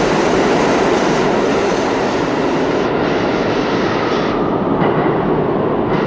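R32 subway train moving through an underground station: a loud, steady rumble of steel wheels on rails, whose higher hiss fades from about three seconds in.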